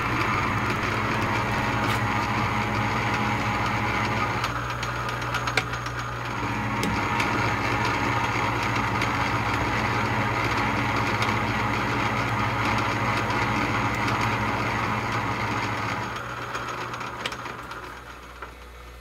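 Atlas 618 bench lathe running under power during a thread-cutting pass, its motor and gear train turning steadily. The sound dips briefly about five seconds in and falls away about three seconds before the end.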